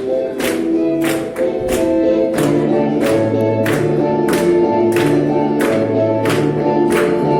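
Folk ensemble of older women singing together with instrumental accompaniment, over a steady percussive beat of about two strikes a second and a bass line that comes in about a second in.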